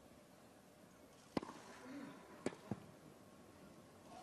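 Sharp knocks of a tennis ball on racket strings and court. There is one about a second and a half in, then two close together about a second later, as a point is played.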